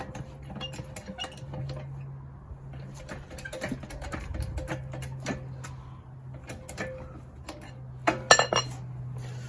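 Metal clicks and clinks from a car jack being worked under a Fiat 500 to lift the wheel just off the ground, with a loud ringing metal clank about eight seconds in.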